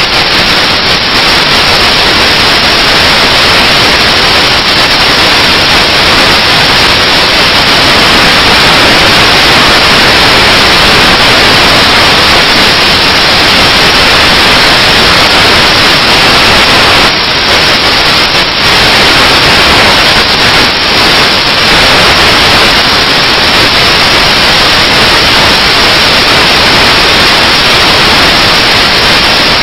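Loud, steady static hiss like white noise, drowning out everything else on the soundtrack.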